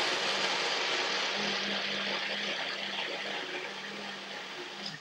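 Personal-size blender motor running steadily with a constant low hum, blending a thick cannellini-bean dressing. It cuts off abruptly right at the end.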